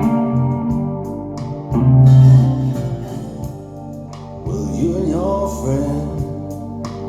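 Music: guitar with a singing voice.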